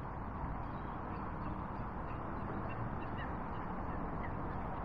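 Steady outdoor background rush with a few faint, short bird calls in the second half.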